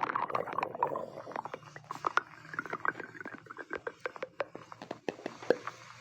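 Stomach growling and gurgling: an irregular run of small pops and bubbly clicks over a low rumble.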